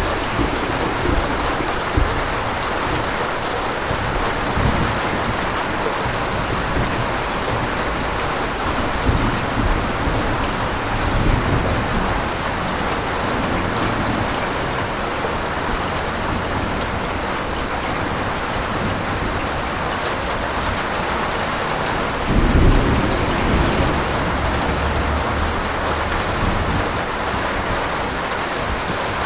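Thunderstorm: steady heavy rain hissing on surfaces, with low rolling thunder underneath and one louder rumble of thunder a little before the end.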